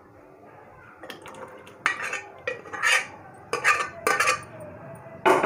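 A metal ladle scraping and clinking against the inside of a pressure cooker as chickpea curry is scooped out into a serving bowl: about six short strokes, roughly a second apart.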